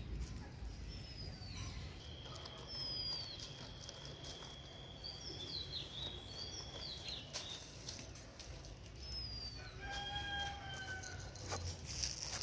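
Birds calling: short falling chirps, a long steady whistle held for about five seconds, and, about ten seconds in, a longer pitched call. Light scratching and clicks of paws digging in dry soil and leaves under it.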